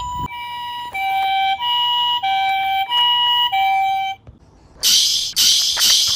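Ambulance two-tone siren alternating between a high and a low note about every 0.6 s, stopping about four seconds in. After a short pause, a rhythmic high hissing chirp pulses about twice a second.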